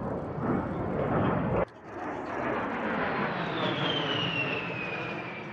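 A-10 Thunderbolt II flying by, its twin TF34 turbofans giving a steady jet rush with a high whine that falls in pitch as it passes. A louder rush of noise cuts off abruptly about a second and a half in, before the whine sets in.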